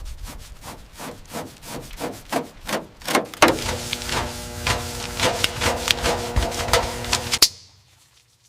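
Rhythmic scraping strokes, about three or four a second, as of rust being scraped or sanded off metal by hand; about halfway through a steady machine hum joins in, and all of it stops suddenly near the end.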